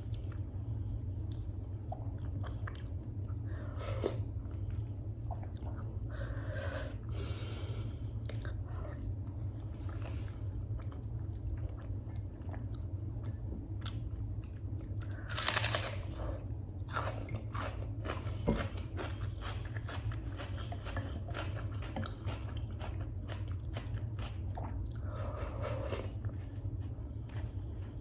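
Close-miked chewing and biting of a mouthful of freekeh with beef, with many short wet clicks and smacks and a louder burst about halfway through. A steady low hum runs underneath.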